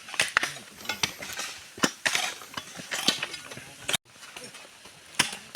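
Hand tools knocking and scraping on road stones and gravel during road repair: irregular sharp clacks, roughly two a second, with scraping between them. The sound cuts off abruptly about four seconds in, then picks up again.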